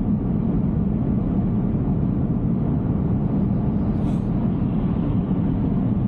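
Steady low road and tyre noise from an electric Tesla Cybertruck at highway speed, about 68–70 mph, on wet pavement. There is no engine note.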